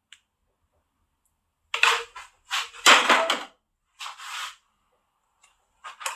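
A spoon scraping and knocking against a glass baking dish while spreading and smoothing a thick, hot milk pudding mixture, in four short bursts starting about two seconds in.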